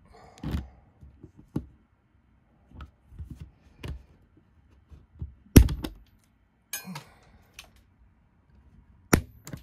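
Wire cutters snipping through a point motor's thin metal operating pin: light clicks and knocks of the tool being positioned, then one sharp snap about halfway through as the pin is cut, and another sharp click near the end.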